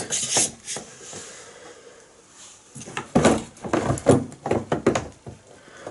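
Clicks and knocks of a hard-bodied plunge router and its parts being handled and turned over, a few near the start and a busy cluster of them in the second half.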